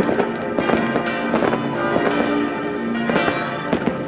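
Many New Year's Eve fireworks going off at once: a dense, irregular run of bangs and crackles. Church bells ring steadily underneath.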